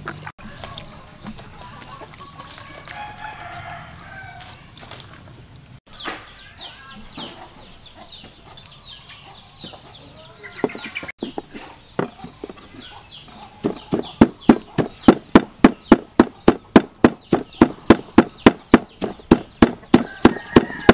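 Large knife chopping small fish on a plastic cutting board: steady, sharp strokes about three a second, starting about two-thirds of the way through. Before that, chickens cluck and crow in the background.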